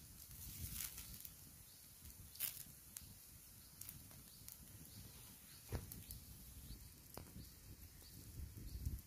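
Wood fire crackling faintly under a flat cooking stone, with a few scattered sharp pops over a soft hiss and low rumble.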